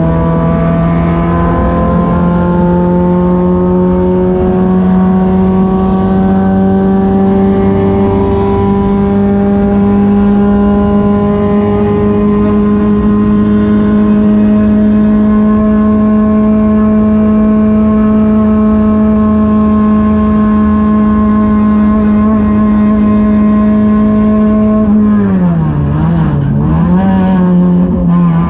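Race car engine heard from inside the cockpit, running at high revs and climbing slowly in pitch for over twenty seconds under full throttle. Near the end the revs drop and pick up twice, as the driver lifts off and changes gear.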